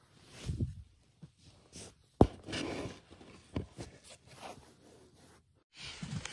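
Fleece blanket rustling and rubbing against a handheld phone as it is moved around, with a few sharp knocks of handling noise, the loudest about two seconds in.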